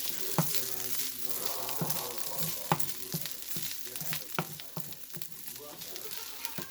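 Food sizzling in a frying pan while it is stirred, with a utensil knocking against the pan every second or so.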